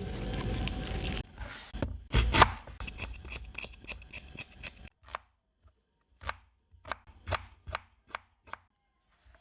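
Knife chopping on a cutting board: a run of sharp, separate strikes, close together at first and then spaced out with short silences between them.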